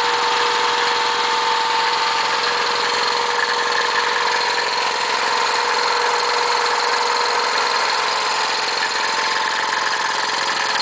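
Porter-Cable 80-gallon vertical air compressor's 6 hp electric motor and pump running steadily, with a loud, even hiss of air blowing freely from the open outlet, which has no adapter fitted.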